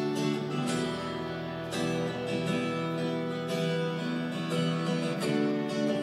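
Acoustic guitar strumming chords over a PA during a sound check, a new chord struck every second or two.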